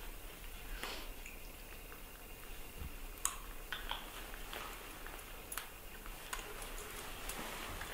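Quiet handling sounds: scattered small clicks and soft rustling as a baby macaque shifts on a fabric pet bed and pats newborn puppies under its hands.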